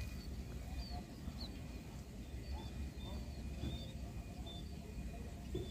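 Small birds chirping in short, high, repeated calls over a steady low rumble.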